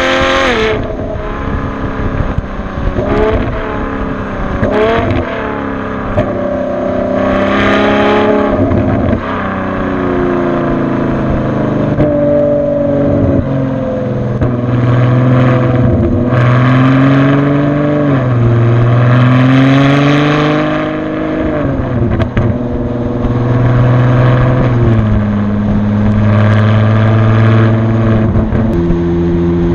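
Ferrari FF's V12 heard through a Tubi Style exhaust while driving, recorded right at the tailpipes. The engine note climbs in pitch under acceleration and drops back sharply at each upshift, several times over.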